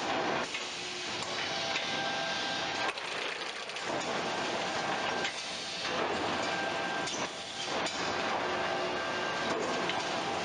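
Bag palletizer machinery running: a steady mechanical rattle and hiss with a few faint steady tones, easing off briefly a few times.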